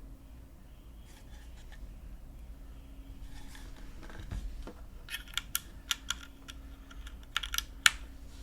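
Typing on a custom mechanical keyboard with Cherry MX Black linear switches, GMK keycaps and a full aluminium plate, top mount: a clacky keystroke sound. Faint, scattered keystrokes at first, then louder separate keystrokes from about five seconds in, the loudest near the end.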